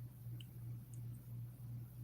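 A steady low hum fills a quiet room, with two or three faint, tiny clicks. No snore or breath is heard.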